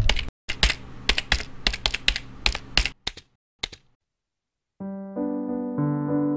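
Computer keyboard typing sound effect: a quick, uneven run of key clicks lasting about three and a half seconds and stopping. About five seconds in, a soft electric piano tune starts.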